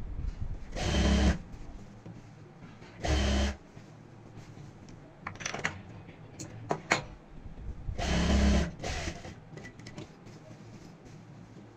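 Industrial sewing machine stitching cloth in three short runs of about half a second each, with a few sharp clicks from handling the fabric between the second and third runs.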